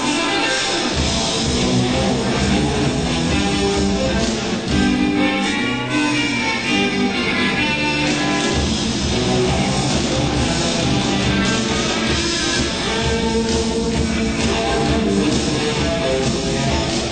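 A band playing, led by an electric guitar with bass and drums underneath.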